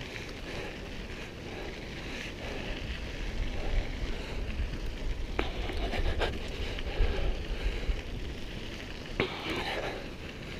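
Mountain bike rolling over a loose gravel dirt track: tyres crackling on the stones, with wind rumbling on the microphone and a few sharp clicks of stones or the bike rattling.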